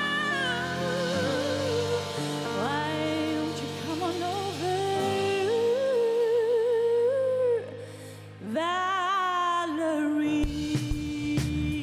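Live pop-soul band: a female lead singer holds long notes with vibrato over sustained chords. The sound drops briefly about eight seconds in, and drums and bass come in near the end.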